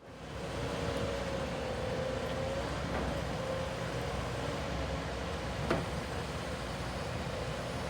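Komatsu HB215LC-2 hybrid crawler excavator running steadily, with a steady whine over the engine noise and a single sharp click about six seconds in.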